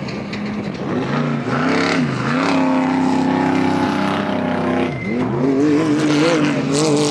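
Off-road race vehicle's engine running hard, its pitch dropping and recovering about two seconds in, then dropping more deeply about five seconds in before climbing again.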